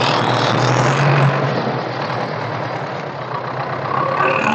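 Tractor's diesel engine running under load as it hauls a trailer loaded with bricks over soft, muddy ground, briefly louder about a second in.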